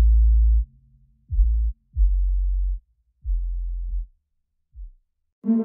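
Background music: a run of deep, sustained bass notes, each starting sharply and lasting under a second, with short gaps between them. A fuller, sustained chord comes in near the end.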